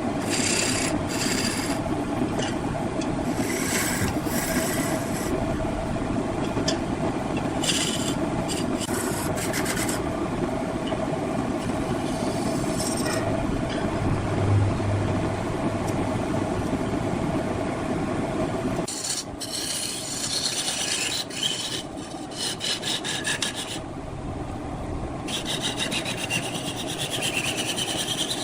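Large wood lathe running, with a cutting tool rasping and scraping against the spinning wood over a steady machine hum. The sound changes about two-thirds of the way through, becoming thinner and more uneven.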